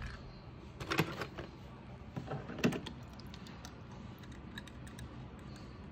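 Small toy cars being handled, giving a few light clicks and taps against each other and the plastic trays, in two clusters about one second and two and a half seconds in.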